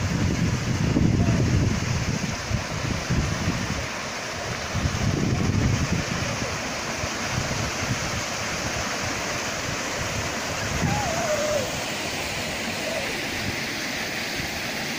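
Small waterfall pouring over granite boulders into a shallow pool, a steady rush of water. Gusts of wind rumble on the microphone in the first several seconds.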